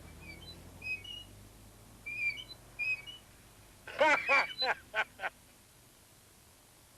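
Short, high chirping squeaks, faint at first, then a louder run of about five squeaky calls around four seconds in.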